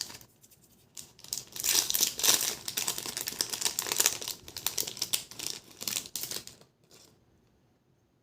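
Plastic packaging crinkling and rustling as it is handled and opened, a dense crackle that stops about six and a half seconds in.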